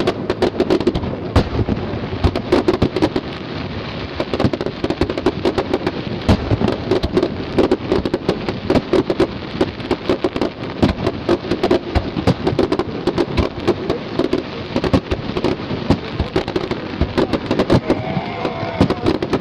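Fireworks display: aerial shells bursting in a rapid, unbroken string of bangs over continuous crackling.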